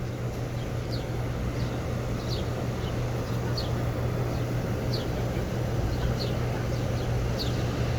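Several Carrier and American Standard air-conditioner condenser units running together: a steady fan rush over a constant low compressor hum.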